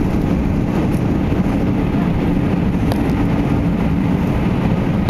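Cabin noise of an Airbus A340-600 at take-off, heard inside the cabin over the wing: its four Rolls-Royce Trent 500 engines give a steady low rumble with a faint steady hum as the airliner lifts off and climbs.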